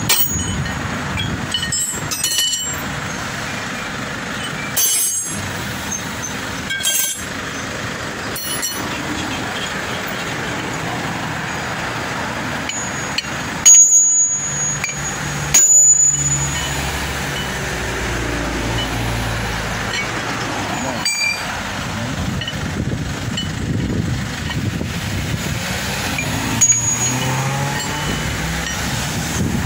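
A hammer striking a long steel drift set in a truck's removed wheel hub: sharp metallic clangs, some with a short ringing tone, about nine blows at irregular intervals, the hardest two about halfway through. A steady background hum of road noise runs underneath.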